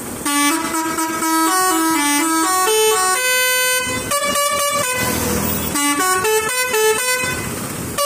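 Truck's multi-tone musical air horn playing a tune of quickly stepping notes, in three phrases with short breaks between them.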